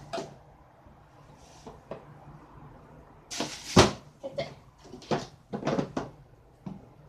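Plastic cooler being handled: short knocks and clacks of its lid and handle, with rustling of the plastic-wrapped meat inside. The loudest rustle comes about three and a half seconds in, then a cluster of knocks around five to six seconds.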